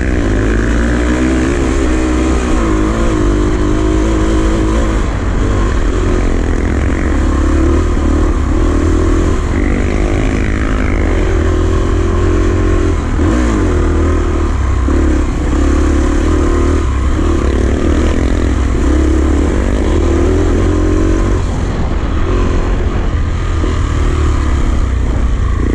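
Enduro dirt bike engine running under load, its pitch rising and falling again and again as it revs and shifts gears.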